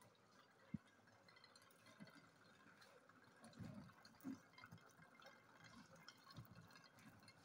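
Near silence, with faint gurgling and bubbling as air squeezed from a balloon is forced through tubing into water in a plastic bottle. A few faint knocks come in the middle.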